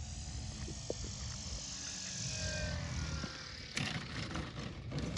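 Giant-scale RC Cessna Bird Dog on its landing approach: a faint falling motor and propeller whine over a steady rush of noise, then a few short knocks about four seconds in as it touches down.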